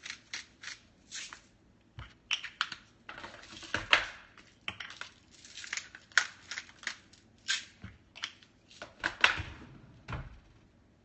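Hand-twisted salt and pepper grinders crunching out seasoning in a quick, uneven run of short grating strokes that stops about a second before the end.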